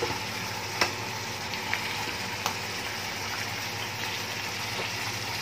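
Tofu pieces sizzling steadily in hot oil in a frying pan, fried briefly so their water cooks off, with three sharp clicks in the first half, the first the loudest.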